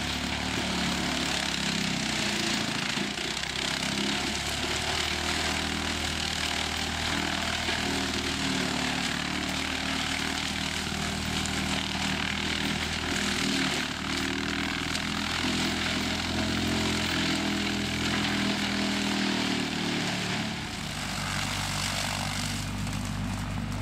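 Tractor engine working hard to drive a PTO-powered Loftness Timber Ax Extreme mulcher, its rotor steadily shredding brush with a constant hiss over the engine hum. The engine note changes about twenty seconds in.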